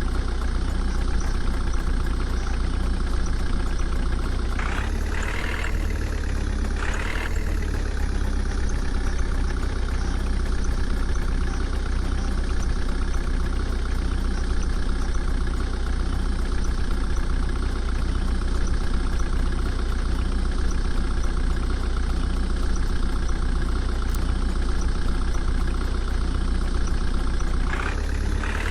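Heavy diesel engine running steadily, with brief surges in engine note about five and seven seconds in and again near the end.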